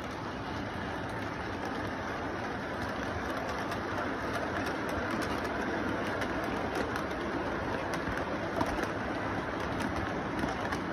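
Model freight train rolling along its track, a steady rumble with fine clicking from the wheels, getting a little louder as the cars come past about four seconds in.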